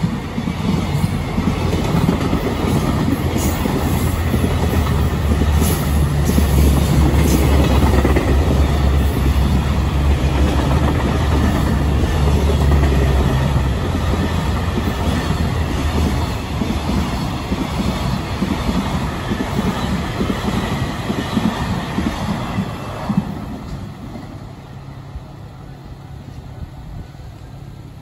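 Container freight train passing close by over a level crossing, its wheels clattering over the rail joints, with a heavy low drone through the first half. The noise thins out and fades away over the last few seconds as the last wagons go by.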